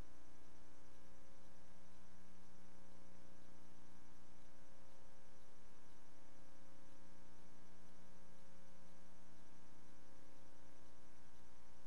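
Steady electrical hum with hiss, the noise floor of a silent film transfer, with nothing else happening.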